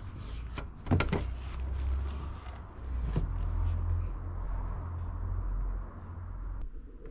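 A few light clicks and knocks from a folded camping table being handled, about a second in and again near three seconds in, over a steady low rumble.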